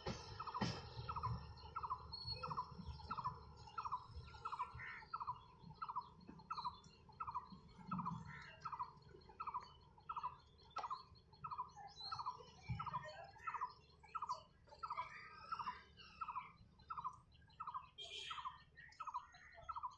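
A bird repeating one short, low note over and over at a steady rate of about two a second, with other small birds chirping faintly around the middle.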